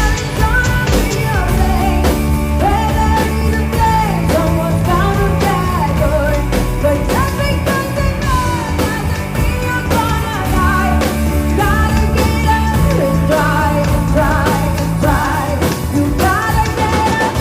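Background rock-pop song with a singing voice, guitar and drums.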